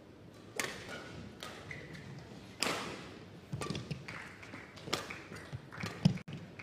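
Badminton rally: a string of sharp racket strikes on a shuttlecock, about one every second or so, echoing in a large hall.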